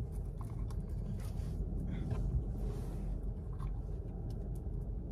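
Steady low rumble of a car's engine and road noise heard from inside the cabin, with a few faint clicks.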